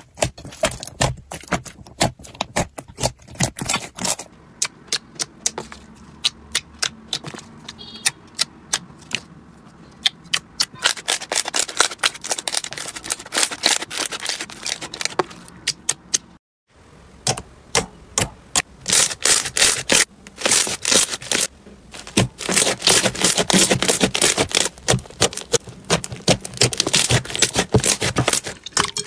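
Hands squeezing and kneading slime: rapid, irregular sticky crackling and popping clicks, in bursts, with a short silent gap a little past halfway.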